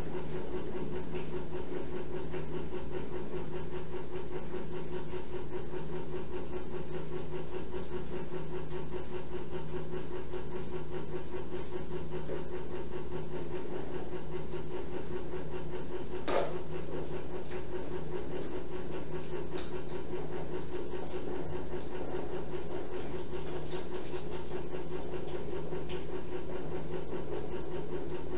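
Steady low mechanical hum, with one short, sharp sound about sixteen seconds in.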